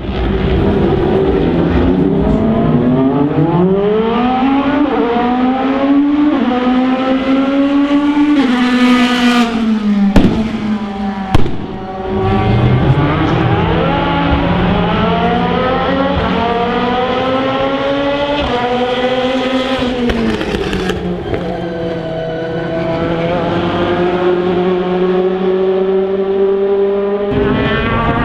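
DTM race cars' 4.0-litre V8 engines accelerating, the engine note climbing and dropping several times. Two loud backfire bangs come about ten seconds in, a second and a half apart. After that a steadier engine note rises slowly near the end.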